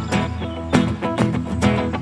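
Background music of quick plucked guitar notes in a steady rhythm.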